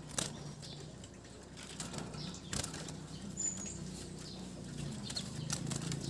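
White-eye fluttering its wings inside a wire-mesh bird cage, with a few light knocks as it lands on the perches and mesh. A single short high chirp comes about three and a half seconds in.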